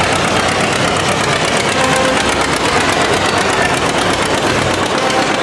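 A line of antique John Deere two-cylinder tractors driving past, their engines running with a fast popping exhaust.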